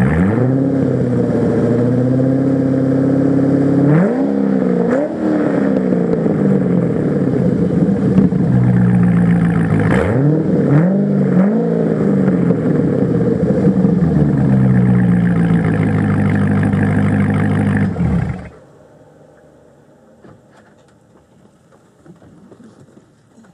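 C6 Corvette Z06's 7.0-litre LS7 V8 running through a custom exhaust: idling and revved in short blips at the start, about four seconds in and about ten seconds in, settling back between, then switched off about eighteen seconds in.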